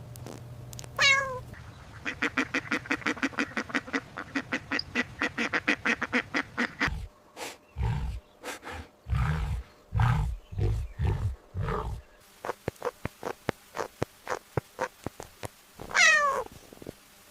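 Recorded animal calls. A loud call slides down in pitch about a second in and again near the end. Between them come a fast run of short, pitched, quack-like pulses, then a series of deep, short grunting pulses and another quick run of pulses.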